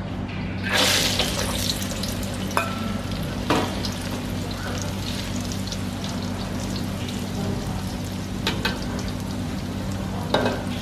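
Whole raw cashew nuts tipped into hot oil in a steel wok: a sudden burst of sizzling about a second in, settling into a steady frying fizz as the heat drives moisture out of the nuts. A metal spatula stirs them, with a few sharp clinks against the wok.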